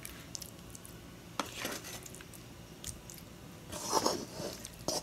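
Wooden spoon dropping saucy chicken pieces onto macaroni in a glass baking dish: quiet, scattered soft squishes, taps and scrapes, with a louder stretch about four seconds in.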